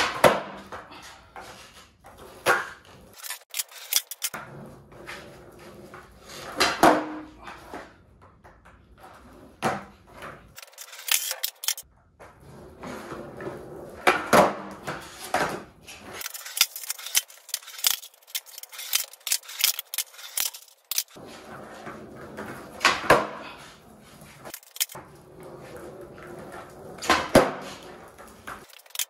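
Skateboard on a concrete floor: the tail pops, the board clatters and the wheels land hard again and again, with wheels rolling in between. The sharp knocks come every few seconds.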